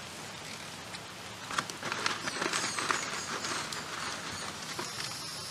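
A squirrel chattering: a burst of rapid raspy clicks and high chirps starting about a second and a half in and lasting about two seconds, over a steady hiss.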